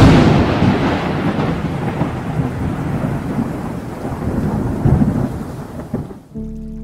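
A thunderclap over rain: a sudden loud crack that rolls and rumbles, with a few swells, and fades over about six seconds. Music with steady held notes comes in near the end.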